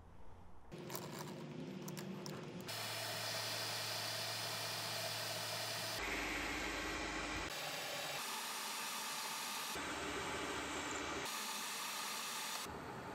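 A metal lathe running and cutting metal stock: a steady hiss from the cut over the machine's hum. It changes abruptly every second or few where short shots are cut together, and near the end the tailstock drill is boring into the workpiece.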